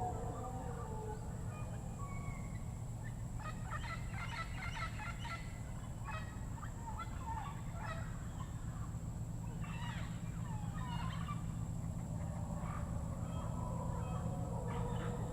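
Panamanian rainforest ambience: birds calling in two clusters of rapid, fowl-like calls, with lower wavering calls near the start and end over a steady high hum.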